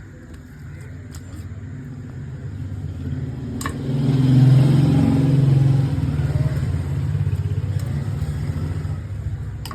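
A motor vehicle's engine going by: its hum grows louder to a peak about four to six seconds in, then fades away. A sharp click comes just before the peak.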